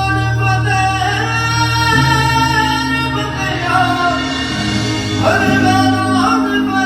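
A song playing: a voice singing long held, gliding notes over a steady low bass drone and instruments.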